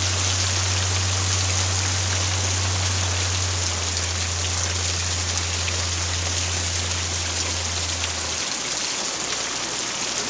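Heavy rain pouring down steadily, with runoff water streaming across a flooded yard. A low steady hum sits underneath and fades out near the end.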